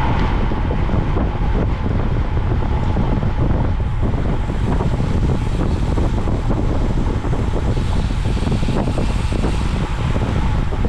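Steady, loud wind buffeting the microphone of an onboard camera on a racing bicycle moving at speed, a rush of noise heaviest in the low end.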